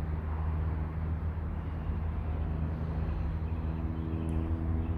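Steady low mechanical hum, like an engine or motor running at a distance, with higher tones joining in about three and a half seconds in.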